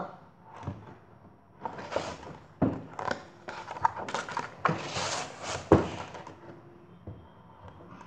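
Paper rustling and swishing as a picture book's page is turned by hand, with a sharp knock late on as the book is handled.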